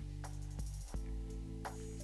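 Background music with sustained low notes and light percussive hits.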